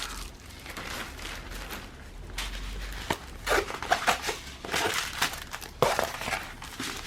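Packaging crinkling and rustling as rolled diamond-painting canvases are tugged and worked free of it, in irregular bursts with a few sharp clicks.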